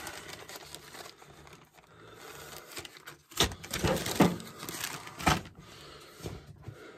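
Clear plastic bag crinkling and rustling as it is handled, with a cluster of sharper crackles from about three and a half to five and a half seconds in.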